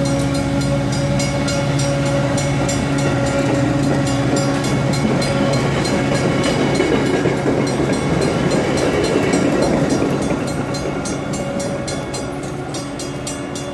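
Metra bilevel commuter coaches rolling past on the rails: a rushing wheel-and-rail noise that swells about seven to ten seconds in, then fades as the cab car pulls away. Over it a grade-crossing bell rings quickly and steadily, clearest once the train has gone by.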